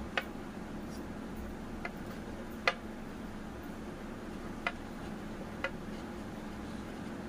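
A whiteboard marker tapping and clicking against the board while writing: about five short, sharp ticks at irregular intervals, the loudest a little before the middle, over a steady low hum.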